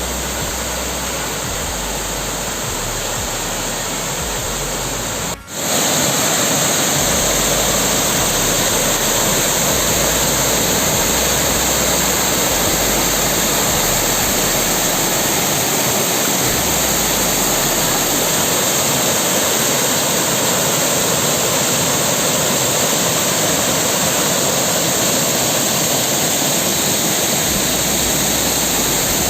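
Waterfall rushing steadily. It cuts out for a moment about five seconds in, then continues a little louder.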